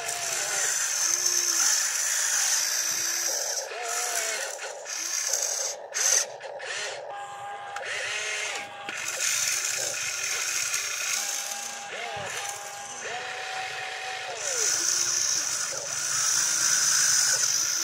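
Electric motors and plastic gearboxes of a radio-controlled excavator whirring in stretches as the boom, arm and cab move, the whine rising and falling with the throttle. There is one short loud knock about six seconds in.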